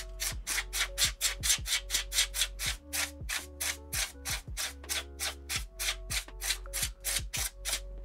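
Background music with a steady beat: quick even ticks, about five a second, over a low bass line and held chords.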